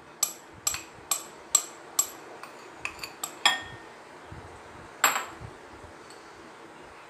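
Steel spoon clinking against a glass mixing bowl of ragi flour: short ringing taps about two a second for the first three and a half seconds, then one more tap about five seconds in.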